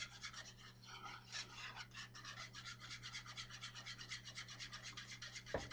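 Wire whisk beating gravy in a skillet, a fast, even scraping of about eight to ten strokes a second against the pan, as a spoonful of seasoning is mixed in and the gravy thickens. A steady low hum runs underneath.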